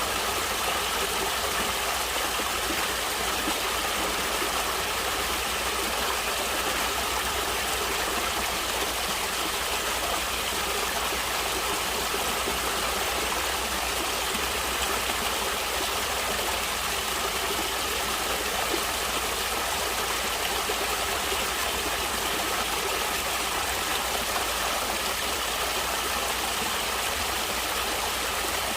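Natural stream water flowing in a steady, unbroken rush that does not change.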